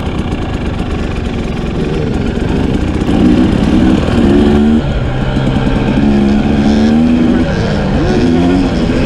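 Dirt bike engine pulling hard under throttle, its note climbing several times and dropping back as it shifts up through the gears.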